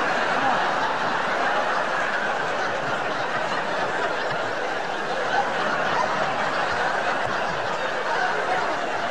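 Theatre audience laughing at length, a steady sustained wave of laughter with no break.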